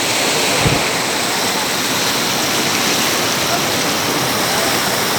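Steady rush of a waterfall over rocks, with one short low thump about a second in.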